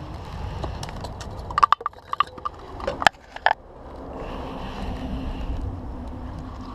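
A landing net being handled: a quick run of sharp knocks and clatters between about one and a half and three and a half seconds in, over a steady low rumble.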